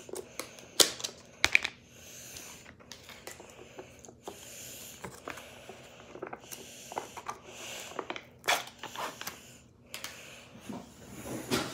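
Plastic tub of Greek-style yogurt dip being opened by hand: the lid is pulled off and the foil seal peeled back, making a run of sharp plastic clicks and crinkling rustles, with a louder knock near the end.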